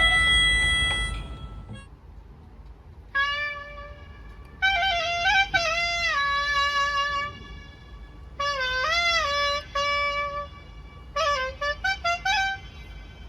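A solo reed wind instrument plays short melodic phrases of held notes, some bent or wavering in pitch, with pauses between the phrases, as its microphone is sound-checked.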